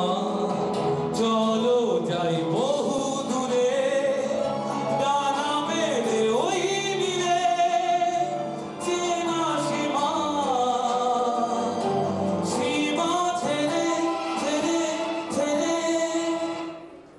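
A man singing a song into a microphone over instrumental backing music; the music fades out shortly before the end.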